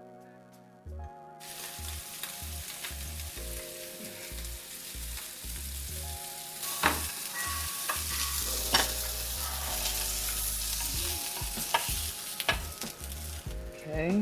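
Chicken sausages sizzling in a frying pan. The sizzle starts about a second in and grows louder about halfway, with a few sharp clicks of a utensil against the pan.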